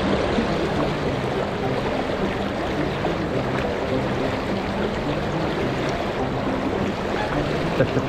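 Shallow, fast river riffle rushing steadily over rocks.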